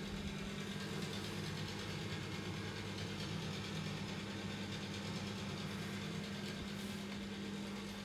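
Small bathroom extractor fan running: a steady electric motor hum with an even hiss of moving air.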